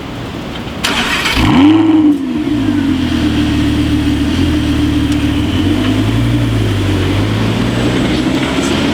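A Lamborghini supercar engine starting up: a brief burst of cranking, then the engine catches with a sharp flare in revs that falls back and settles into a steady high idle.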